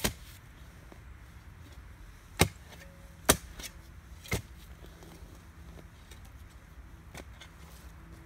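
Spade chopping down into the woodland floor to dig, four sharp strikes within the first four and a half seconds and a fainter knock near the end.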